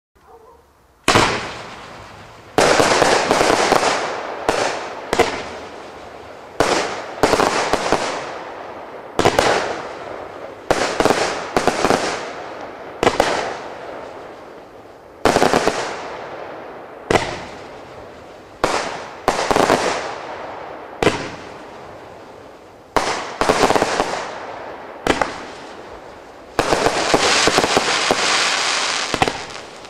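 Celebrity Party fanned firework cake firing: after a quiet first second, a sharp shot goes off every one to two seconds, each dying away over a second or so. Near the end comes a denser, continuous volley.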